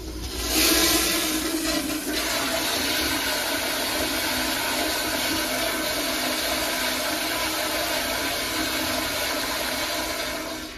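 Gerber Northpoint toilet flushed by its chrome flushometer valve. A sudden loud rush of water peaks about a second in, holds as a steady pressurized flush, then tapers off near the end.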